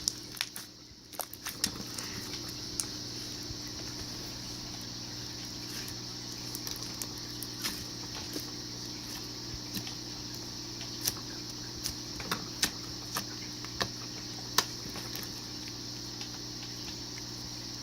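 Slime being squeezed and worked by hand, giving scattered small clicks and pops at irregular intervals over a steady background hum.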